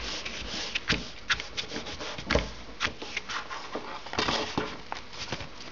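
Hands rubbing and pressing a glued paper sheet onto cardstock and handling the card: paper rustling and rubbing with many small crackles and taps.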